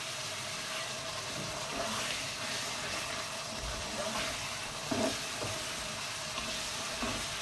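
Chickpeas in masala sizzling as they fry in oil in a nonstick pot, the added water cooked off, while a spatula stirs them, with a few soft knocks of the spatula against the pot.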